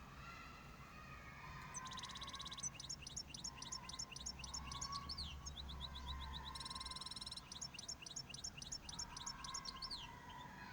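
A small cage bird singing in two phrases. Each is a quick string of sharp, high chirps and falling notes broken by short buzzy stretches.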